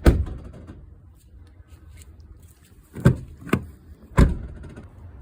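Rattling knocks from a Tata Harrier over a low steady rumble: one sharp knock right at the start, then three more in quick succession about three to four seconds in. The owner presents this rattle as a quality fault in a six-month-old car.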